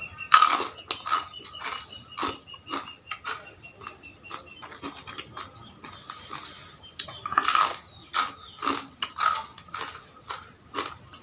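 Close-miked eating: irregular wet chewing and biting clicks, about one to three a second, loudest just after the start and again about seven seconds in.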